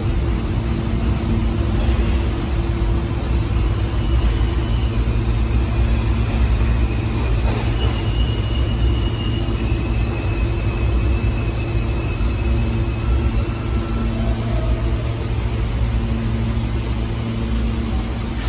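New York City subway train standing in the station, humming steadily and low, with faint high whines that come and go in the middle.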